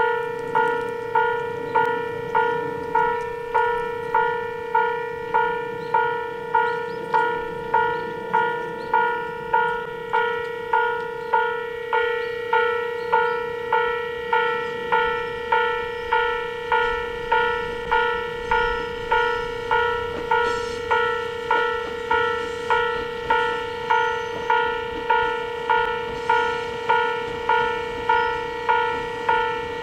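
Railway level-crossing warning bell ringing steadily: evenly spaced dings, about one and a half a second, each ringing on into the next. It signals that a train is approaching or passing.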